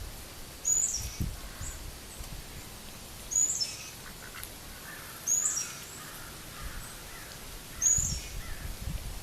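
A mallard hen coughs: four short, high-pitched squeaky coughs, spaced about two to two and a half seconds apart. It is the sound the uploader's Pekin ducks made when they had aspergillosis, though it could also be something stuck in her throat.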